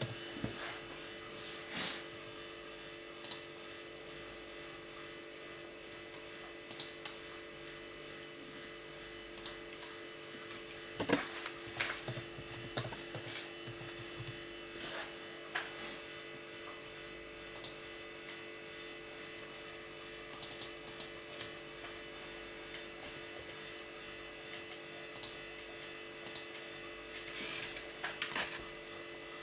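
Computer mouse clicks and keyboard keystrokes, a dozen or so scattered single clicks with short runs of typing about eleven and twenty seconds in, over a steady hum.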